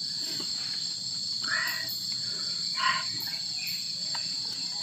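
Steady high-pitched insect chorus, with two short, soft noises about a second and a half and three seconds in.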